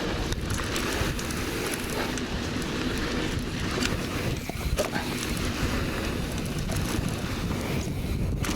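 Mountain bike riding fast down a dirt trail: steady wind noise on the microphone over the roar of the tyres and the rattle of the bike, with a few sharp knocks.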